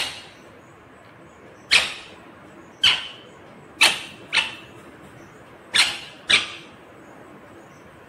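Rose-ringed parakeet giving seven short, harsh squawks over a few seconds, some single and some in quick pairs.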